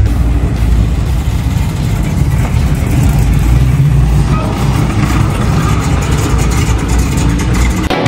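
V8 engines of American muscle cars rumbling at low speed as they drive past, among them a classic second-generation Chevrolet Camaro SS.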